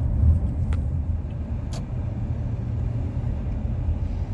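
Steady low rumble of a car driving, heard from inside the cabin, with two faint clicks in the first two seconds.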